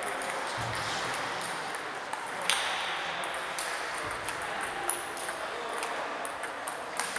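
Table tennis balls clicking off bats and tables, many tables in play at once in a large sports hall, with a few louder sharp hits from the nearest table about two and a half, five and seven seconds in.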